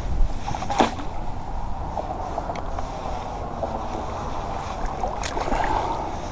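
Water splashing and sloshing as a hooked carp is played in close, with sharper splashes about a second in and again about five seconds in.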